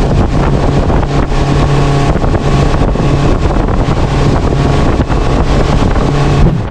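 Twin outboard motors running steadily at high speed, over the rush of the wake and spray, with wind buffeting the microphone and irregular thumps as the hull runs through choppy water.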